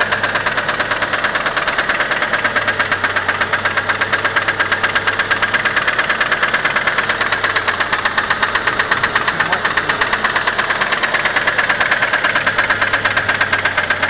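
Mitsubishi 4G63 DOHC engine idling with a rapid, even clacking from the cylinder head, several strokes a second. The owner's first guess is failing hydraulic lash adjusters.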